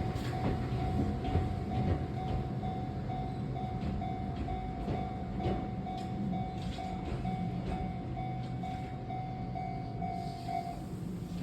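Japanese level-crossing warning bell ringing in a steady, rapidly repeating ding, over the rumble of an Enoshima Electric Railway (Enoden) train passing over the crossing.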